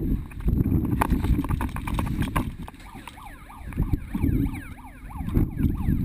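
Wind buffeting the microphone in a steady low rumble, with a few sharp cracks in the first two seconds. Faint, rapidly rising and falling tones sound in the middle while the rumble eases.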